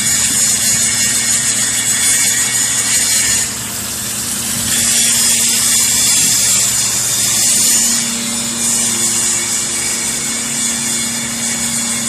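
Hydraulic power unit of a metal-chip baler running: a steady electric-motor and pump hum under a loud high hiss. The hiss drops away about three and a half seconds in and comes back about a second later.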